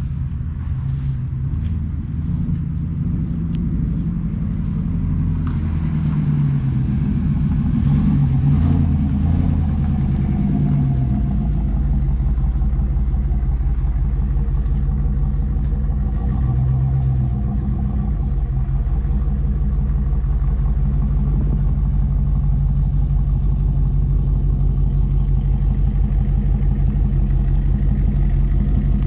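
A 1994 Pontiac Trans Am's 5.7-litre LT1 V8 running, its pitch shifting up and down for the first ten seconds or so, then holding a steady low note.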